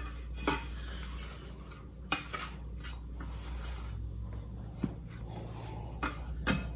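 Metal bench scraper scraping and clicking against a stone countertop while scooping up wet bread dough: about five short, sharp scrapes spread through, with softer rubbing between them.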